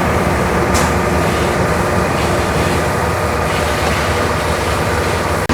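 Heavy diesel engines of concrete trucks at a slab pour, running steadily and loudly.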